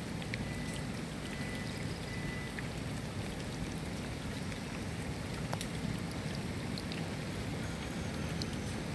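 Steady rain falling: an even hiss with a heavy low rumble underneath and scattered sharp drip ticks.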